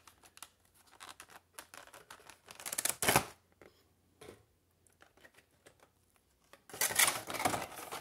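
Toy packaging being handled as an action figure is lifted out of its box: a run of small clicks and rustles, with louder rustling bursts about three seconds in and again around seven seconds in.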